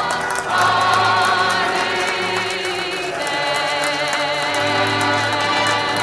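Background music with a group of voices singing, holding wavering notes over a steady accompaniment.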